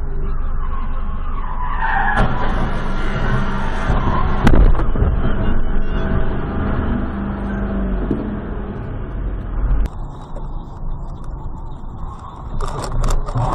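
A car on the road with tyres skidding, under a steady low rumble of engine and road noise, and a sharp knock about four and a half seconds in that is the loudest moment, with a smaller knock near ten seconds.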